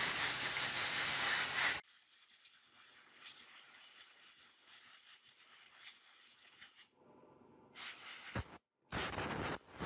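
Jet of water from a hose spray nozzle hissing steadily against the plastic TV cabinet, cutting off suddenly about two seconds in. Then only faint rustling of wires and parts being handled, with a few brief louder bits near the end.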